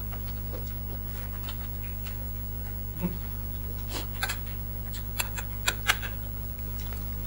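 Cutlery clinking against plates a handful of times during a meal, over a steady low hum.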